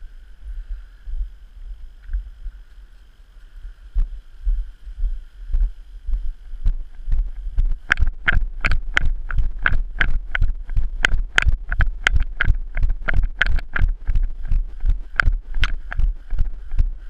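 Footsteps of a person walking briskly on pavement, heard through a body-worn camera as low thumps, with a sharp click on each step from about halfway in, about three a second. Wind rumbles on the microphone throughout.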